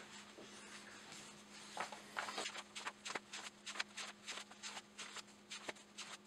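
Pages of an old paperback booklet being leafed through by hand: faint, quick paper flicks and rustles, several a second, starting about two seconds in.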